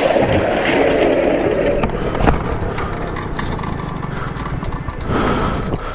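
Motorcycle engine running on a bike lying on its side after a crash, mixed with road noise. A single sharp knock comes about two seconds in.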